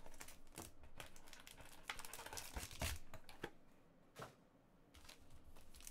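Foil-wrapped trading card pack and its cardboard box being handled: irregular crinkling and rustling with light clicks. It goes quieter for about a second near the end, broken by one soft knock.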